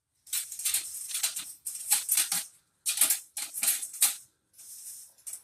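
Metal grill rack of a fire pit being opened out and adjusted between its settings: metallic rattling and scraping in several short bursts.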